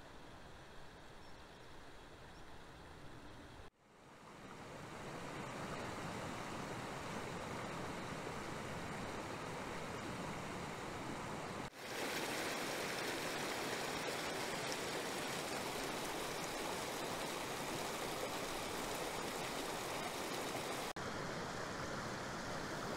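Water rushing over rocks in a small, stony mountain beck: a steady rushing noise. It is faint at first, comes in stronger after about four seconds, and turns louder and brighter about twelve seconds in.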